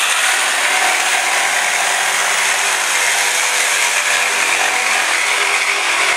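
Electric jigsaw cutting through a wooden board, its motor and blade running steadily.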